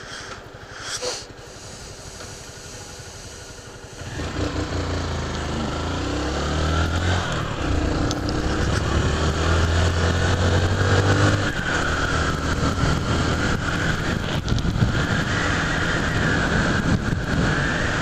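Honda CG 150 Fan single-cylinder motorcycle idling quietly, then about four seconds in pulling away hard. Its engine note climbs through the gears, dipping at each upshift, with wind noise on the camera.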